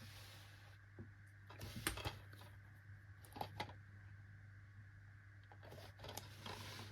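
Faint handling of a plastic DVD case: scattered clicks and rustles, the loudest about two seconds in and again about three and a half seconds in, over a steady low electrical hum.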